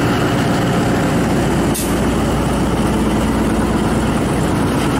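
Diesel locomotive engine running steadily as it hauls a passenger train out of the platform, with the coaches rolling past close by. A single sharp click comes about two seconds in.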